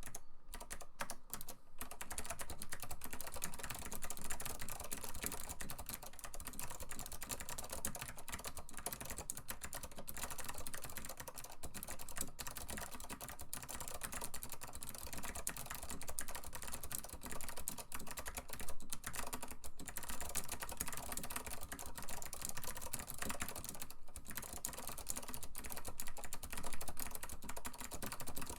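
Continuous fast typing on an Acer KB-102AS keyboard with clicky Alps SKCM Blue switches: a dense stream of key clicks, with a few short pauses near the start.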